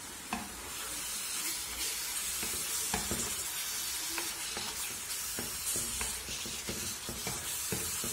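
Minced meat and chopped onions sizzling in a nonstick frying pan while a wooden spatula stirs them. The spatula scrapes and knocks against the pan in short, irregular clicks over the steady sizzle.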